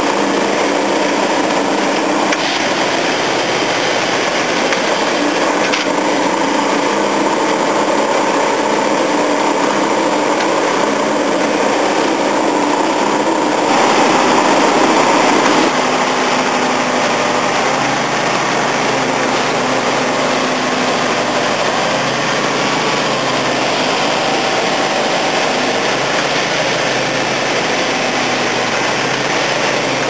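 Plasser & Theurer railway track maintenance machinery running at close range, a steady, dense engine and machinery noise with the clatter of its working gear. It swells briefly about fourteen seconds in.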